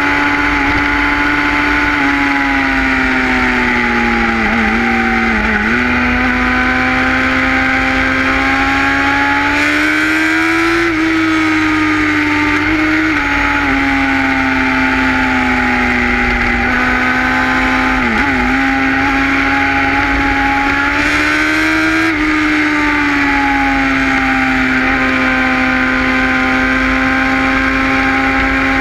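Sport motorcycle engine with a carbon-fibre slip-on exhaust running under load at road speed, heard from the bike itself. The engine note holds fairly steady but rises and falls with the throttle through the bends. It dips sharply for a moment a few times, and twice climbs and then drops suddenly, as at a gear change.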